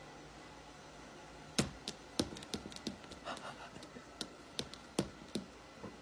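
Irregular sharp taps and light knocks, a dozen or so, starting about a second and a half in, over a faint steady background hum.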